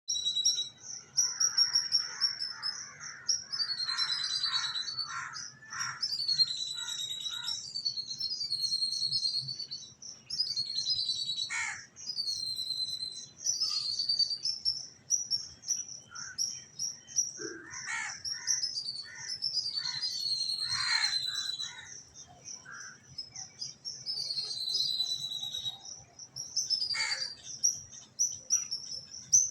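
Several birds singing together in a morning chorus: a continuous high, rapid song with repeated down-slurred whistled notes, joined at times by lower chattering calls, most around the start and again about two-thirds of the way through.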